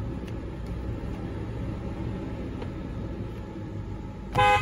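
Toyota 4Runner's 4.0 L V6 engine idling, heard from inside the cabin, then the car horn sounds once, briefly and loudly, near the end.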